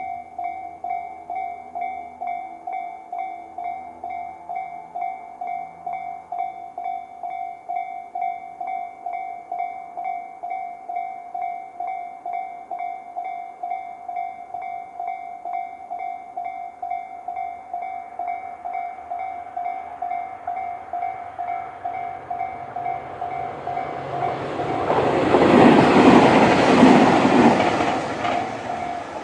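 Tobu-type electronic level-crossing alarm bell (Tobu sound C) ringing in a steady, even rhythm of about two and a half strikes a second. Over the last several seconds a Tobu 500-series electric train approaches and passes close by, its rumble growing loudest near the end, and the bell cuts off just as the train goes by.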